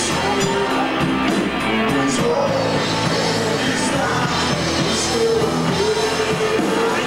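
Rock band playing live and loud, with singing over the band and cymbal hits every second or so.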